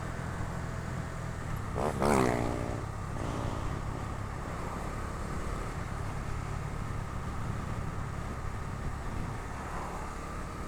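Bajaj Dominar 250's single-cylinder engine running on the move, a steady low drone. About two seconds in, a brief, louder sound with a falling pitch rises over it, and a weaker one follows a second later.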